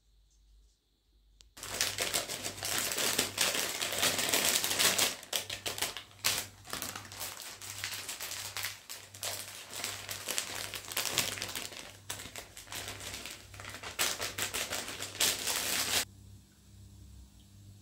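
A small kitchen appliance motor, such as a food processor or grinder, running over a dense, rapid rattle of hard bits. It starts abruptly about one and a half seconds in and cuts off abruptly near the end.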